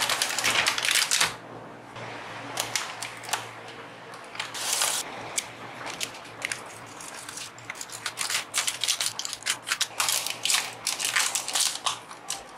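Plastic blister packaging and its card backing being handled and turned over, crinkling and crackling in irregular bursts, loudest in the first second or so.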